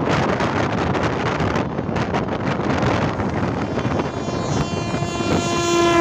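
Train horn sounding one long steady blast as a train approaches, growing louder from about two-thirds of the way in, its pitch starting to drop at the very end as the train passes. Underneath, a steady rushing rumble of the moving train and wind on the microphone.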